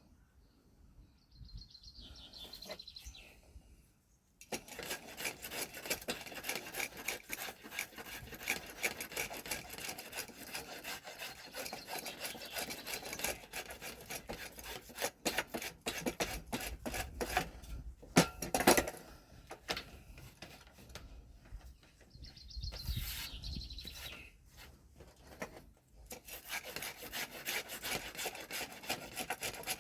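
Abrasive sanding of a wooden hiking stick: a dense, rhythmic scraping rasp that starts a few seconds in, stops briefly about three quarters of the way through, then starts again.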